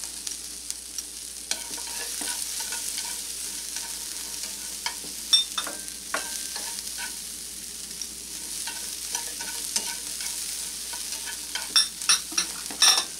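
Diced chicken, scallions and sesame seeds sizzling in a nonstick skillet as they are stir-fried with wooden chopsticks, which tap and scrape against the pan. A quick run of louder taps comes near the end.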